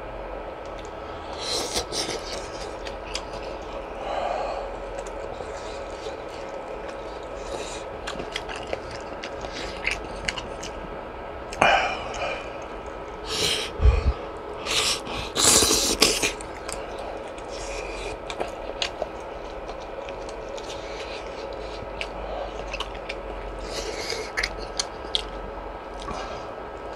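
Close-miked eating sounds from fish cake soup: chewing, small wet clicks and sharp sips and slurps of the broth, over a steady background hum. A cluster of the loudest slurps comes about halfway through.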